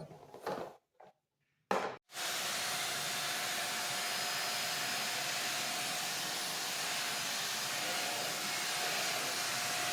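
Seznik Turbo 3-in-1 handheld vacuum cleaner's 600 W motor running steadily in mopping mode, a constant whir with a faint steady tone. It starts about two seconds in.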